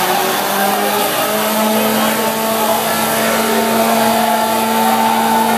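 Acura Integra engine revving hard in a burnout. It climbs in pitch in the first second or so, then is held at a steady high pitch while the tyres spin and smoke.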